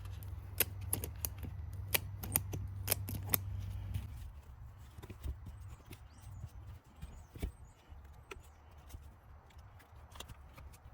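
Sharp clicks and taps from handling tools and the mower's rear tire and rim, over a low steady hum that drops away about four seconds in.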